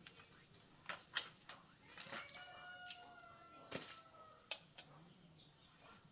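Quiet shop sounds: a few sharp, scattered clicks and clinks of tools on metal parts, and in the background a rooster's long drawn-out crow starting about two seconds in and lasting nearly two seconds.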